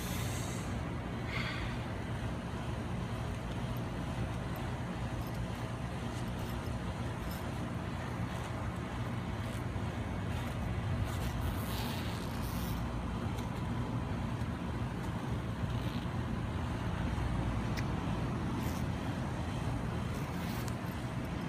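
Steady low outdoor background rumble with a faint hum, broken by a few brief soft rustles.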